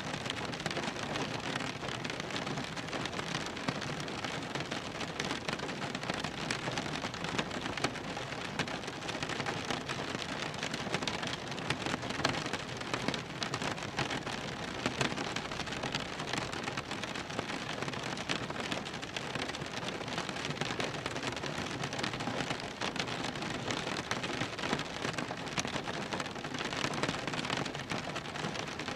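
Rain drumming on a car's roof and windows, heard from inside the cabin: a steady dense patter of many small drop impacts.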